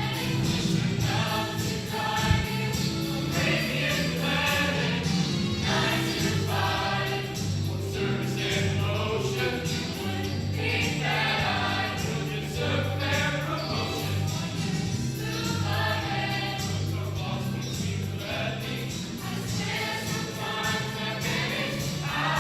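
Show choir singing as an ensemble with band accompaniment: massed voices over a bass line that steps between notes, with a steady beat of percussion.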